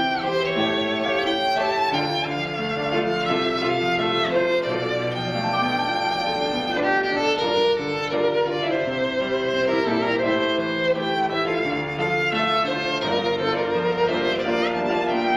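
Violin playing a melody with vibrato and occasional slides, over a piano accompaniment.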